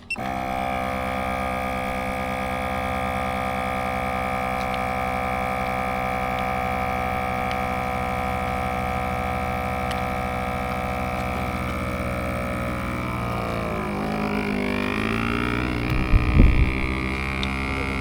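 Vacuum sealer's pump motor running with a steady drone, its pitch wavering and dropping about twelve seconds in. A few low thumps follow near the end.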